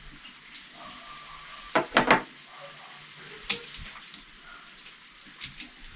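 Clicks and light clatter of a DWT angle grinder's housing, its small parts and a pair of pliers being handled during a carbon brush change. There is a quick cluster of sharp clicks about two seconds in and a single sharp click at about three and a half seconds.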